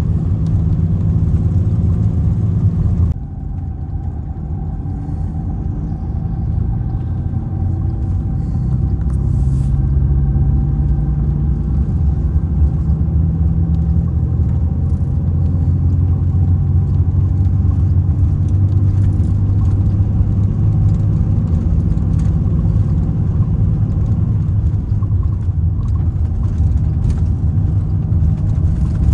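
Mercedes-Benz O-500R coach's diesel engine running under way with a steady drone and rumble. About three seconds in it drops abruptly, as if off the throttle, then builds back up and runs on steadily.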